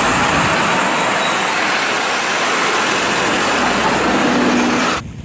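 Street traffic, with red double-decker buses driving past close by: a steady rushing noise that cuts off abruptly near the end.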